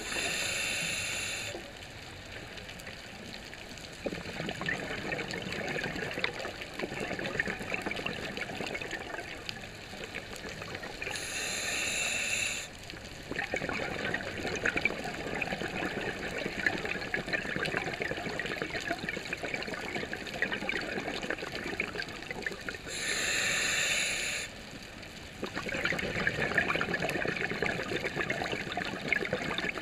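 Scuba diver breathing through a regulator underwater: three hissing inhalations about twelve seconds apart, with the crackle and gurgle of exhaled bubbles in between.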